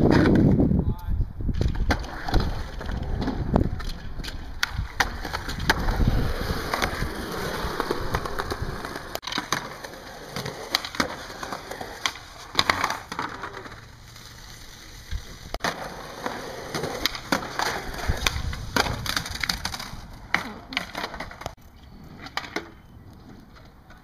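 Skateboard wheels rolling on concrete, with many sharp clacks as the board's tail pops and the board lands on ledges and the ground.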